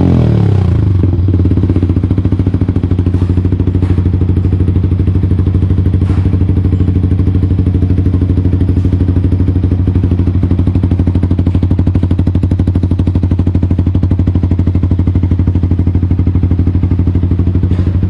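Yamaha R15 V3's single-cylinder engine idling steadily through an aftermarket Akrapovic muffler, with an even, unchanging beat of exhaust pulses.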